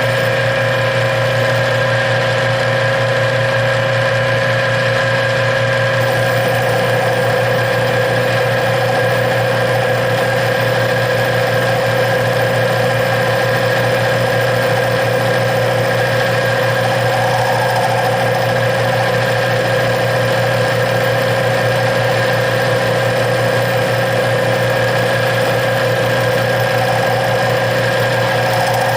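Metal lathe running steadily, turning aluminum stock, with a constant hum and whine; the cutting noise thickens about six seconds in.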